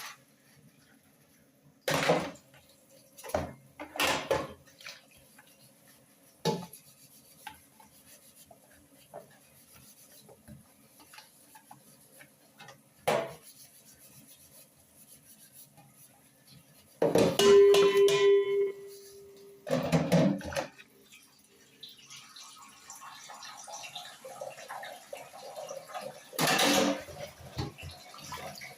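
Cooking pots and utensils being handled: scattered knocks and clatters, with one ringing metal clang about two-thirds of the way in. A steady hiss rises in the last few seconds.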